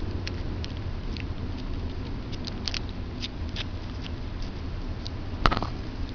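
Chihuahua gnawing on a dried pig ear: small, irregular crunching clicks, with one sharp, louder knock about five and a half seconds in. A steady low hum runs underneath.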